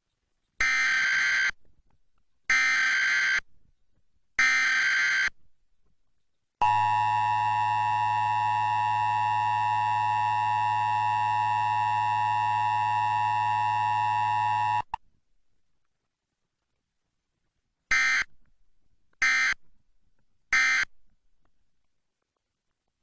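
Emergency Alert System test played off a VHS recording: three bursts of SAME header data, then the two-tone attention signal held for about eight seconds, then three shorter end-of-message data bursts.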